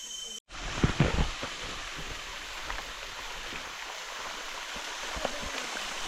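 Rainforest stream water rushing steadily over rocks, with a few low thumps about a second in.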